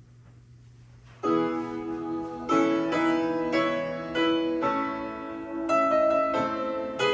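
Piano music played through a Sony TC-K555ESA cassette deck with its monitor switched to the tape while it records, so the music heard comes off the tape. After about a second of low hum the piano comes in with a run of sustained chords.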